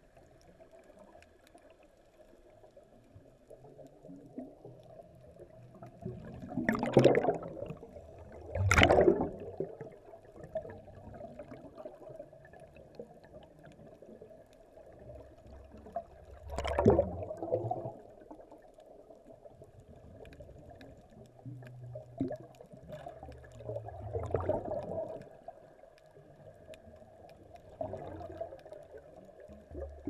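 Underwater bubbling from scuba divers' exhaled air rising past the camera, coming in about six loud bursts a few seconds apart over a faint steady hum.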